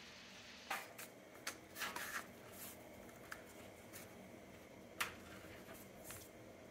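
A table knife cutting strands of fresh pasta on a parchment-lined metal baking sheet: faint, scattered clicks and light scrapes, about one a second.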